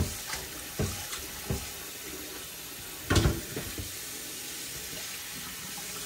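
Tap water running into a kitchen sink as raw offal is rinsed, with a few knocks and a louder clatter about three seconds in.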